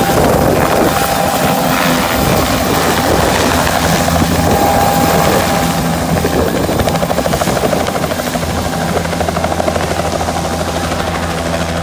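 Helicopter lifting off and climbing away: loud rotor chop and engine at take-off power, growing fainter over the last few seconds as it departs.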